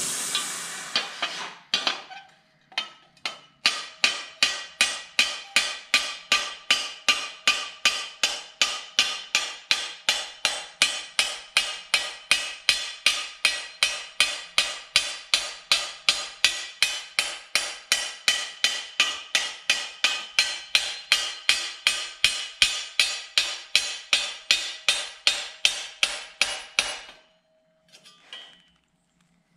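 A hammer strikes the heated edge of a steel armour plate on a stake. It gives a long even run of sharp, ringing metal-on-metal blows, about three a second, as the edge is worked into a twisted "roped" roll. A gas torch's hiss dies away in the first second, and the blows stop about two seconds before the end.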